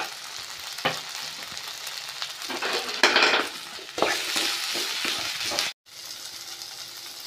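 Shallots, coconut pieces and dried red chillies sizzling in hot coconut oil in a steel kadai, with a spatula scraping and stirring turmeric powder through them in several strokes around the middle. The sound drops out for an instant near the end.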